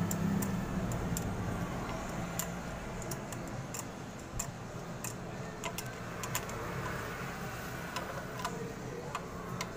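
Rusi Mojo 200's air-cooled single-cylinder engine idling steadily, its valve clearance freshly adjusted, with scattered light clicks over the hum.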